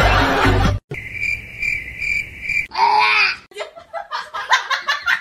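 A high, steady chirping tone pulsing about two to three times a second for nearly two seconds, then a short falling cry and a run of quick laughing bursts.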